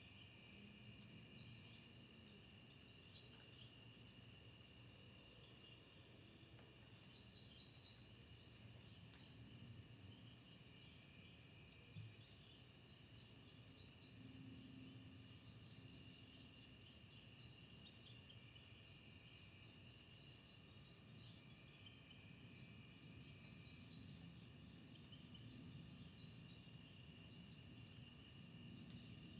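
A steady chorus of crickets and other insects in woodland, several continuous high-pitched trills running together without pause, fairly faint.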